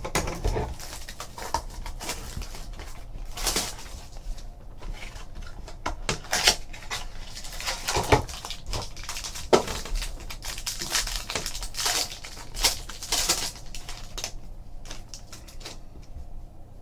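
Handling and opening a box of 2015 Topps Triple Threads baseball cards: irregular crinkling and rustling of cardboard and packaging, with soft knocks.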